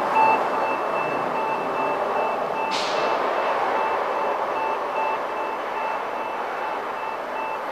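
Rapid electronic beeping at about four beeps a second, two pitches sounding together, that stops about five seconds in. Steady background noise runs underneath, with a brief hiss near the three-second mark.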